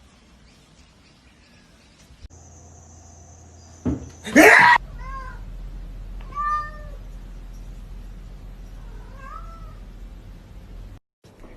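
Domestic cat meowing, with short rising-and-falling calls repeated a few times, after a loud harsh cry about four seconds in.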